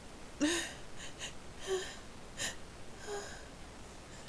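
A person's faint, breathy gasps and sniffles between spice-induced sneezes: about five short catches of breath, several with a brief voiced squeak, and one sharp sniff about halfway through.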